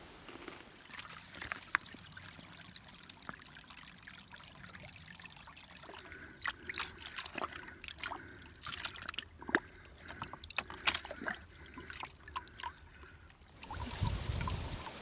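Faint trickling and pouring of water, with a run of small sharp clicks and taps through the middle of it, and a louder low rumble setting in near the end.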